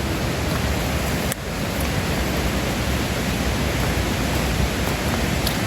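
Steady rush of falling water from a woodland waterfall, with a single short click about a second and a half in.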